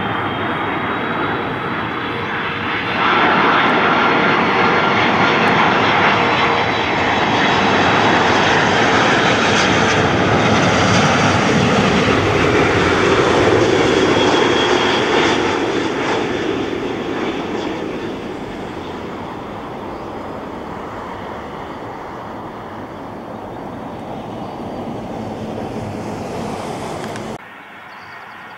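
Airbus A330 airliner on final approach with landing gear down, its jet engines roaring as it flies past: the sound swells about three seconds in, holds at its loudest with a whine sliding down in pitch, then fades. About a second before the end it cuts abruptly to a much fainter, distant jet.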